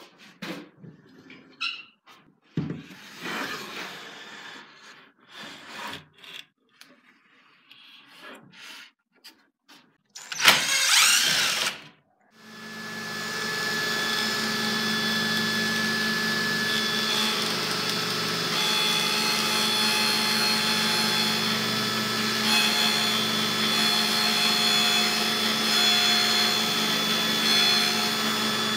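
Table saw with a 1/4-inch dado stack starting up about twelve seconds in, then running steadily while an ax handle held in a sled is fed over it, cutting a groove in the hickory for an oak strip. Before the saw starts there are scattered knocks and clicks of handling and a loud two-second rush of noise.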